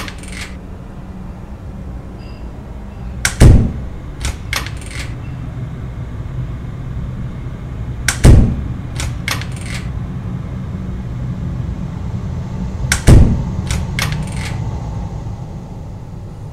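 Knocking on a wooden interior door: three bouts, each a heavy bang followed by three or four lighter knocks, with a low steady hum underneath.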